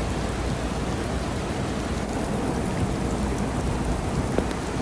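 Heavy rain pouring steadily: an even hiss with the occasional faint tick of a single drop striking close by.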